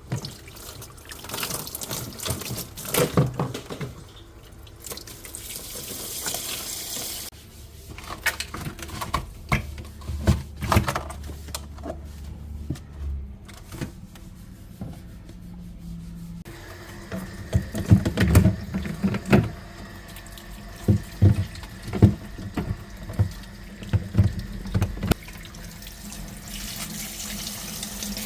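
Running water and splashing with scattered knocks and clatter, as built-up ice is cleared from an iced-up refrigerator compartment.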